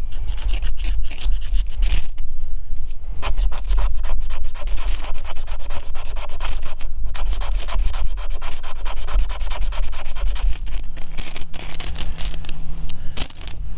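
Ferro rod scraped again and again with a metal striker, a run of rasping strokes throwing sparks at paper tinder, over a steady low rumble. The rod is brand new and hard to spark, and the tinder does not catch.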